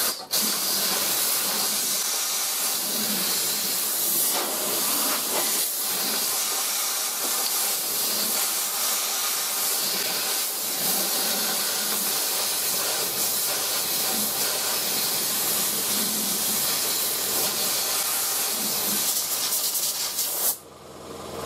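Compressed-air blow gun hissing steadily, its nozzle pushed into a rust hole to blow dust and debris out from behind the fender's outer skin. The blast cuts off about a second before the end.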